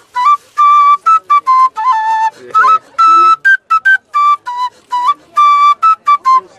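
Wooden end-blown flute played close by: a quick melody of short, separated notes, a few of them sliding up into the pitch.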